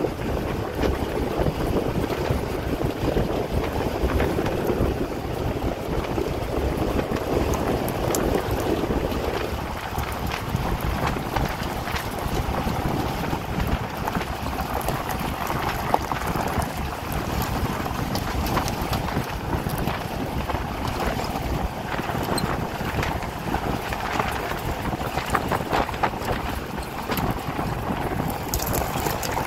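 Wind buffeting the microphone: a steady rumbling noise with scattered crackles.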